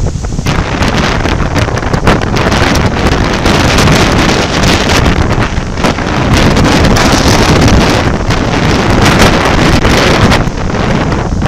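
Strong gusting wind buffeting the microphone, rising and falling in waves of loudness, over the steady wash of heavy surf breaking on the shore.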